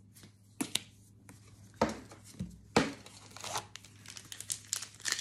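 Pokémon booster pack's foil wrapper crinkling and tearing as it is opened, with trading cards being handled. A few sharp clicks come in the first three seconds, then denser crinkling toward the end.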